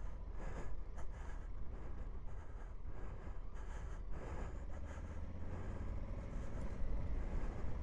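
Honda Africa Twin's twin-cylinder engine running at low, steady revs while riding a dirt track, with a few brief knocks from the bumpy ground.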